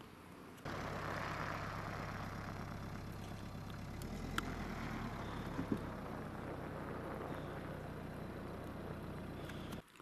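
Steady low hum of a running engine under a faint hiss. It starts abruptly a moment in, shifts slightly about four seconds in, and cuts off just before the end.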